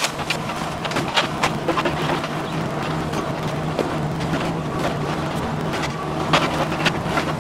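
Mini excavator's diesel engine running steadily under load, with repeated sharp cracks and clatter of splintering wood and falling debris from a house being torn down, the loudest cracks about a second in and again near the end.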